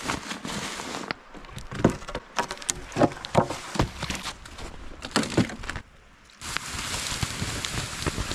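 Wooden poles of a bushcraft shelter frame being knocked and pulled apart: a string of sharp, uneven knocks and cracks. About six seconds in this gives way to a steady rushing hiss.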